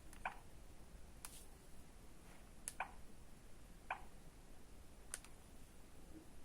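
About five soft, short clicks at irregular intervals: keys on a Sagem MyX-6 mobile phone's keypad being pressed, with no ringtone sounding.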